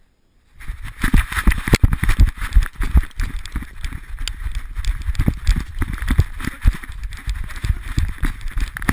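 Sound from an action camera on a running dog's collar: quick, uneven thuds of its stride over grass and the camera jolting against collar and fur, over a rushing hiss. It starts suddenly about half a second in.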